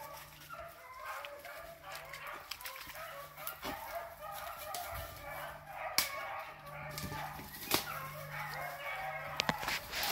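A pack of beagles baying in full cry as they run a rabbit: many dogs' voices overlapping continuously. A few sharp snaps of brush sound through it.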